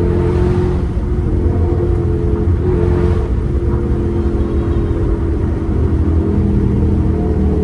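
Car engine and exhaust running loudly during a drive, a low drone whose pitch drifts gently, with two brief rushes of hiss, one near the start and one about three seconds in.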